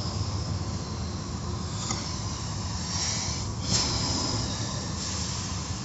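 Automatic tunnel car wash heard from inside the car: a steady rumble of the wash machinery with the hiss of water spray, as cloth curtain strips drag and swish over the car. A louder swish comes a little past halfway.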